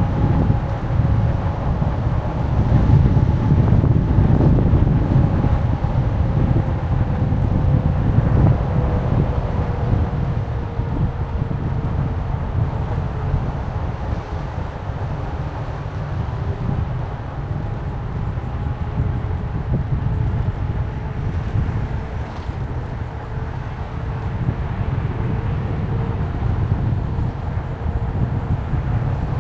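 Moving vehicle's steady low rumble, with faint whining tones that slowly drift down in pitch.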